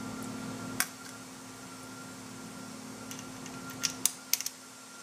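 Sharp metallic clicks from parts of an RCBS Rockchucker reloading press with a Piggyback II progressive conversion being handled: a single click about a second in, then a quick cluster of four or five clicks near four seconds, over a faint steady hum.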